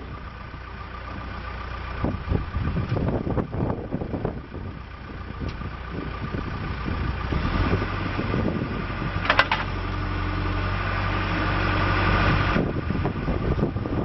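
John Deere 310J backhoe loader's 4045DT four-cylinder turbo diesel running with hydraulics at work as the stabilizer legs are lowered. The engine and a hydraulic whine build up under load, with a few knocks in the first seconds and a brief sharp squeal about nine seconds in. The load drops off abruptly about two seconds before the end.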